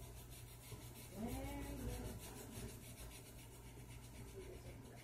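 Coloured pencil scratching on a colouring-book page in quick, repeated back-and-forth strokes. A brief hum-like voice sound rises and falls about a second in.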